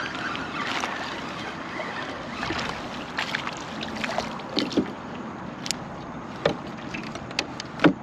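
Water lapping around a kayak, with a white perch splashing back into the water about halfway through and scattered sharp clicks and knocks. The loudest sound is a sharp knock near the end.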